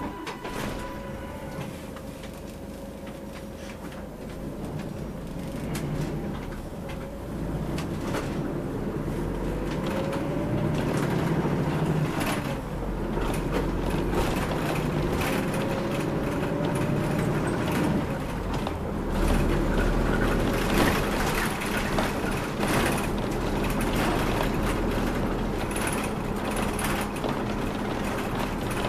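Inside a city route bus as it drives in traffic: the engine and drivetrain run with a low rumble, and a whine rises and falls in pitch as the bus speeds up and slows. The sound grows louder from a few seconds in as the bus gets under way, with road noise and light rattles of the cabin.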